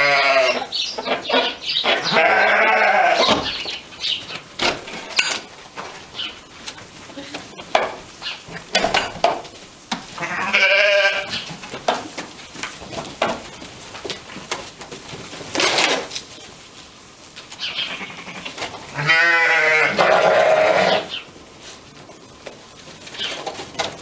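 A flock of sheep bleating: several loud, wavering bleats a few seconds apart, the longest about two seconds long near the end, with faint knocks and rustles between them.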